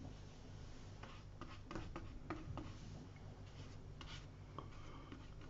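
Faint, irregular strokes of a wet watercolour brush on paper as the sheet is wetted all over with clean water, over a low steady hum.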